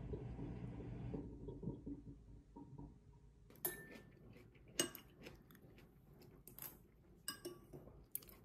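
Dishes and cutlery clinking at a dining table: a few sharp, separate clinks from about three and a half seconds in. Before that, a low, dense noise stops about a second in.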